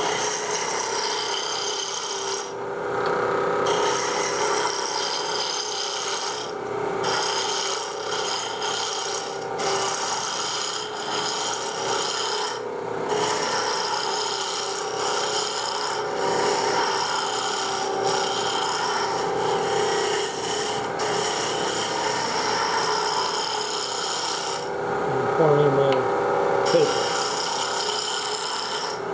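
Spindle roughing gouge cutting a spinning wood spindle on a lathe, a steady shaving sound as the blank is tapered, over the lathe's steady hum. The cut breaks off briefly a few times, most clearly about two and a half seconds in and near the end, as the tool comes off the wood.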